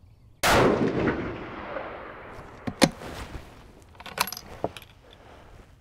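A single shot from a 6mm Creedmoor bolt-action rifle about half a second in, dying away over about a second and a half. A few short metallic clicks follow as the bolt is worked.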